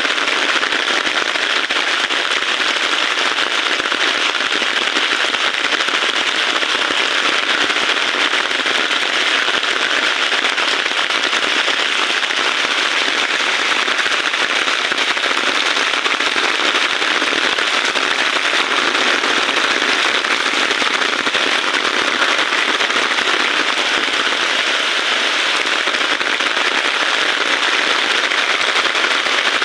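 Heavy rain falling steadily, a dense, even crackle of countless drops.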